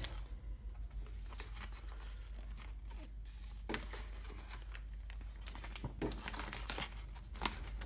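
Light rustling and crinkling with scattered sharp clicks as the wires and plastic connectors of a car stereo wiring harness are handled.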